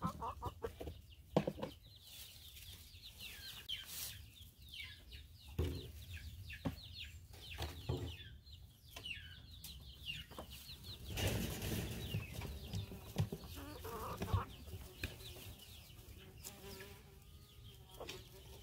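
Small flock of chickens, a rooster, hens and young chicks, clucking and giving many short high calls while pecking at scattered feed, with a few sharp ticks.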